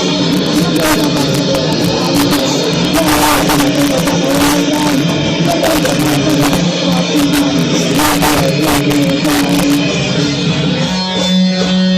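Live rock band playing loud with distorted guitars and crashing cymbals, captured with badly distorted sound. About eleven seconds in, the drums drop out and a guitar chord is left ringing.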